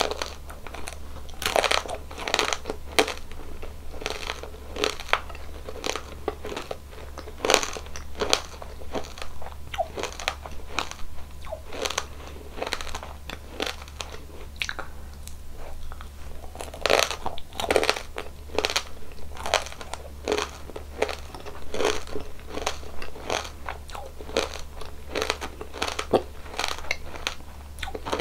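Close-miked biting and chewing of a crispy candy-shelled ice cream, a run of sharp, irregular crunches with quieter chewing between them.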